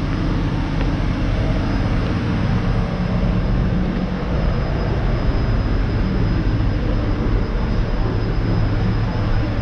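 Steady low rumble with a thin high whine above it.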